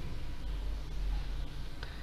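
Pen scratching faintly on paper as lines are drawn, over a low steady hum.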